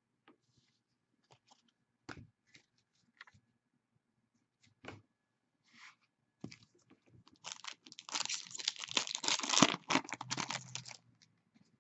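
Scattered light taps of cards being handled, then about six seconds in a few seconds of loud crinkling and tearing of a foil trading-card pack wrapper.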